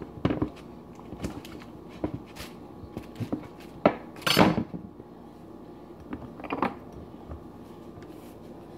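Knife cutting up a block of cheese: scattered light knocks and clinks of the blade against the board, the loudest about four seconds in.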